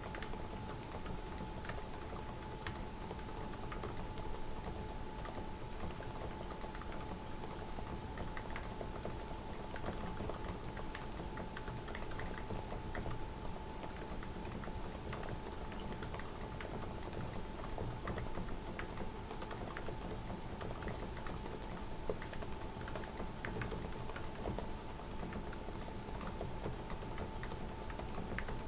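Steady typing on a mechanical keyboard fitted with dev/tty keycaps: a continuous, uneven run of key clacks, over a faint steady hum.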